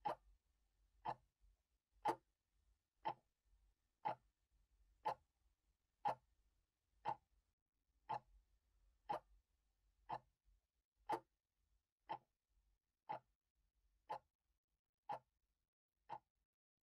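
Steady, quiet ticking like a clock: one short, sharp tick about every second, evenly spaced, with near silence between the ticks.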